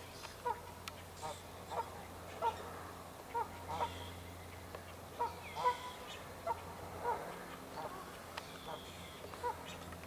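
Canada geese honking over and over, about two calls a second, in agitation at an aggressive mute swan.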